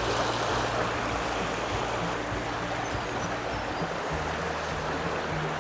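Small mountain stream running steadily, its current breaking over the water.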